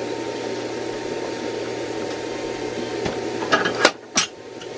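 A steady mechanical hum and hiss, like a kitchen appliance running, that cuts off abruptly about four seconds in. A few sharp clicks and knocks sound just before and after it stops.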